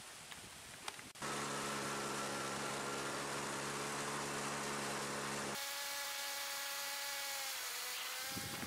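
Motorcycle engine running at a steady speed, heard from on board. It comes in abruptly about a second in as a low, even drone, switches abruptly about halfway through to a higher, thinner engine note, and that note dips slightly in pitch near the end.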